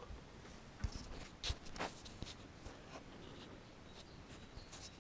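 Faint handling noises: a few short sharp clicks in the first two seconds, with light scraping of something being moved against a surface.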